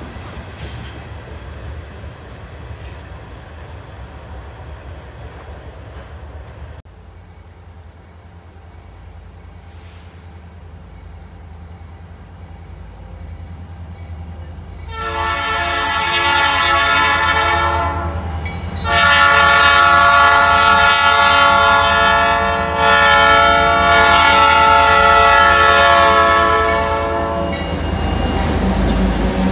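Diesel freight locomotive's air horn sounding for a grade crossing: two long blasts and then a longer held one, starting about halfway in, over the rising low rumble of the approaching engines. Before that, the tail of a loaded hopper train clatters away over the rails.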